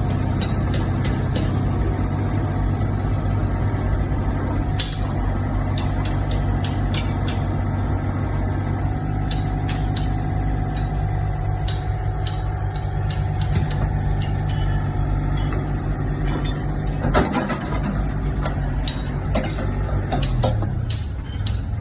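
Komatsu PC38UU-2E mini excavator's diesel engine running steadily, with scattered sharp metallic knocks from the machine working; near the end the engine note drops in pitch.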